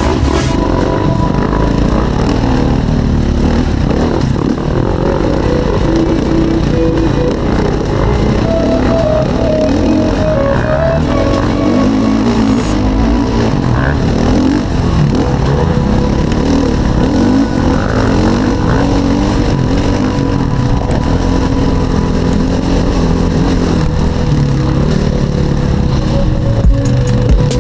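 Enduro dirt bike engine running steadily under way on a rough trail, with music laid underneath it.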